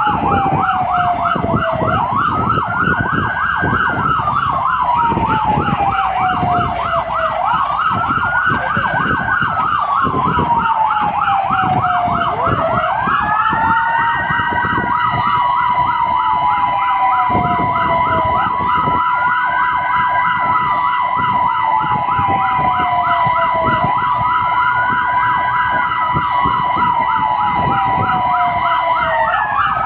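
Fire engine electronic sirens heard from inside a fire truck's cab. A slow wail rises quickly and falls away over about five seconds, over and over, with a fast warbling siren on top. About halfway through, a steady high siren tone joins and holds until just before the end, when it drops away. The truck's engine runs as a low rumble underneath.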